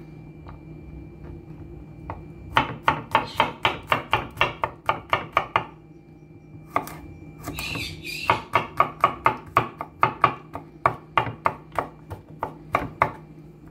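Knife chopping garlic cloves on a wooden cutting board. Quick runs of sharp strikes, about four a second, begin a couple of seconds in, pause briefly around the middle, then resume.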